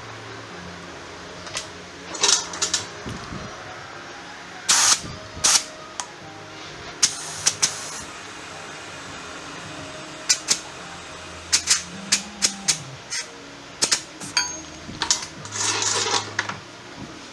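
Irregular sharp clinks and knocks of metal hand tools and parts being handled, some in quick pairs and clusters, over a steady low background hum.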